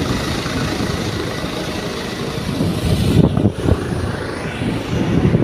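Wind rumbling on the phone's microphone on an open ship's deck, with the steady distant running of a helicopter sitting on the deck far forward after dropping off the pilot. The buffeting gets stronger a little past halfway.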